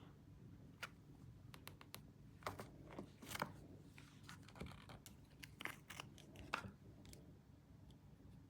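Paper being handled for a scrapbook page: quiet, irregular crinkles and crackles, a dozen or so short ones, with the sharpest near the middle.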